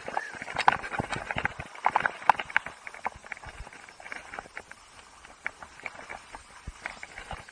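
Skis and poles clattering on hard snow: a quick, irregular run of sharp clicks and knocks, thick for the first few seconds and then thinning out.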